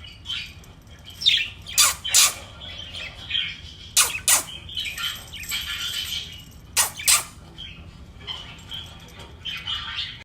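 Pet budgerigars chattering and warbling, broken by loud sharp chirps that come in pairs about two, four and seven seconds in.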